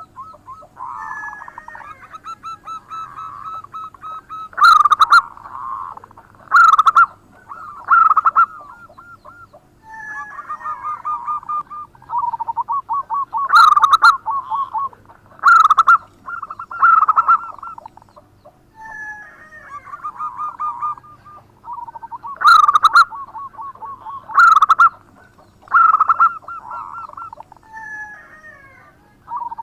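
Zebra dove (perkutut) singing its cooing song: fast rolling trills broken by loud, sharp coo notes, the whole phrase repeating about every nine seconds.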